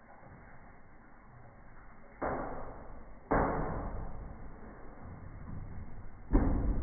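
Three sudden thuds, each dying away briefly, the second about a second after the first and the third some three seconds later: a Bengal cat leaping up and landing on the top of a door.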